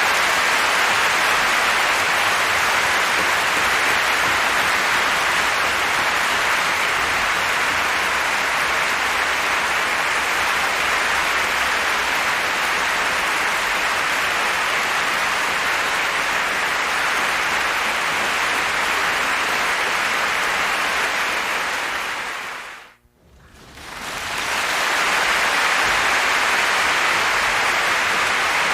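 Large concert-hall audience applauding, a steady dense clapping; the applause fades away to near silence about 23 seconds in, then swells back up.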